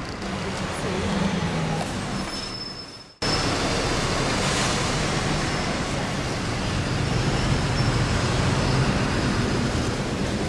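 Road traffic and a running bus engine heard from the open top deck of a double-decker sightseeing bus, a steady rumble with a noisy hiss. About three seconds in the sound fades away and then cuts back in abruptly.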